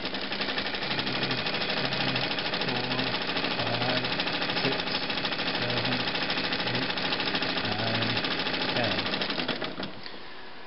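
Freshly oiled Domestic 69 Hi Speed rotary-hook sewing machine running flat out on its belt-driven electric motor, a fast, even mechanical clatter at about 730 RPM. It stops abruptly near the end.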